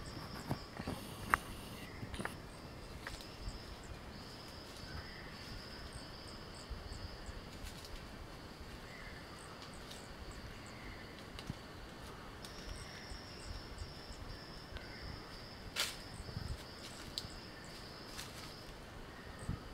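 Insects chirring in a faint, steady high buzz that drops out for a few seconds in the middle, over scattered rustles and clicks of the camera being handled among leaves; one sharper click about three-quarters of the way through.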